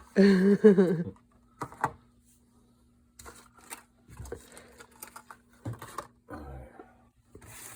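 A man's voice in the first second, then scattered soft rustles and clicks of packaging and gear being handled during an unboxing.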